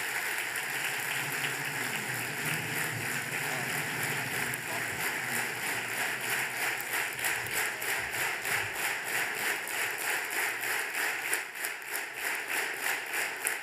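Large audience applauding, a standing ovation of a packed hall; about halfway through the clapping falls into a steady rhythmic beat in unison.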